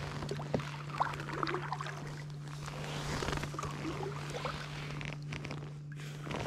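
Kayak paddling: the paddle blades dipping and splashing in calm water, with water dripping off them and a few sharp knocks of the paddle, over a steady low hum.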